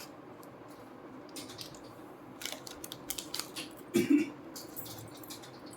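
Scattered light clicks and crinkles of small items being handled, like jewelry pieces and plastic packing, with a brief louder low sound about four seconds in.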